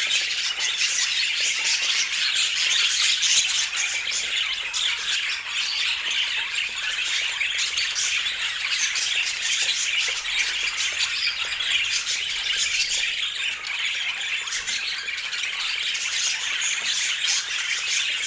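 Budgerigar chatter: a dense, unbroken stream of quick warbles, chirps and squawks.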